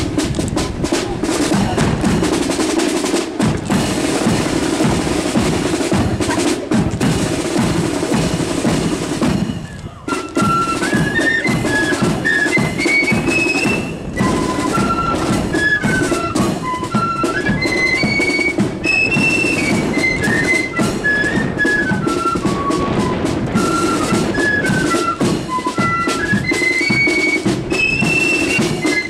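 Marching flute band. Snare and bass drums beat out a march for about the first ten seconds; after a brief pause the flutes come in with a high tune over the drums.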